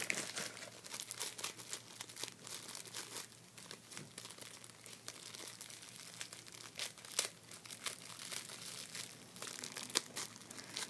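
Clear plastic wrapper of a foam squishy toy crinkling as it is handled and opened: a dense, irregular run of crackles.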